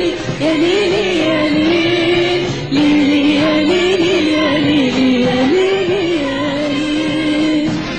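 Live Arabic song: a woman sings a long, ornamented melody of held notes that bend and turn, with a brief break a little under three seconds in, over a band accompaniment.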